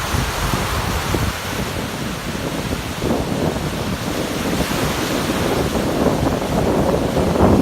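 Rough waves on Lake Erie surging and breaking, with wind buffeting the microphone; the wash swells about three seconds in and again near the end.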